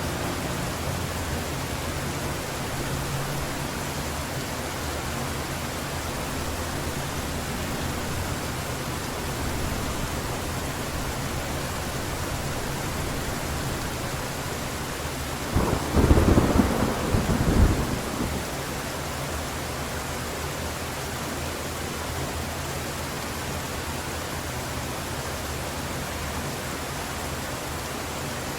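Heavy tropical rain falling steadily as an even hiss, with one loud clap of thunder rumbling for a couple of seconds a little past the middle.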